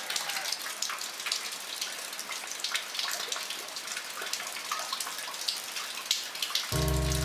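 Steady rain falling, a continuous hiss dotted with many close, sharp drop hits. Near the end, low sustained music notes come in.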